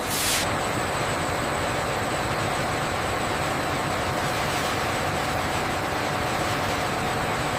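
Steady industrial machinery noise with a faint continuous whine, opening with a short burst of hiss.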